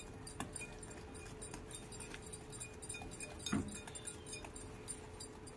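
Wire whisk clicking and scraping quickly against a glass bowl as oil and powdered sugar are beaten by hand into a creamy mixture. The clicks are light and rapid, with one louder knock about three and a half seconds in.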